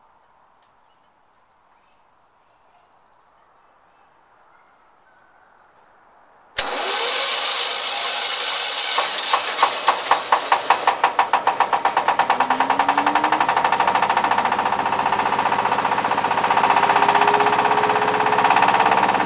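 Stationary engine driving a hammer mill starting up suddenly about six and a half seconds in, chugging with distinct beats at first, then smoothing out and running steadily as it comes up to speed, with a faint rising whine.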